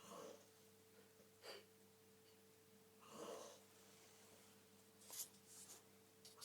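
Faint snoring of a sleeping man: noisy breaths about every three seconds, with a few thinner hissing breaths in between, over a faint steady hum.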